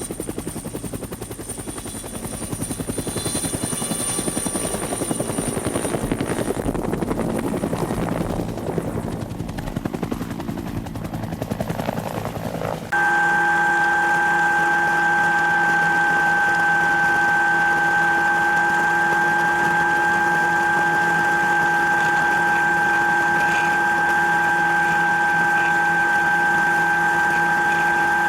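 Helicopter engine and rotor noise. About halfway through it changes abruptly to a louder, steady whine with several fixed tones.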